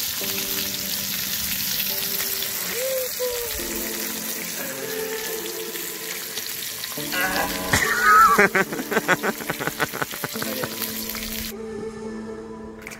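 Food sizzling in a frying pan, with background music; the sizzle stops abruptly near the end. About eight seconds in, a louder pitched sound glides and breaks into a quick rattle of ticks.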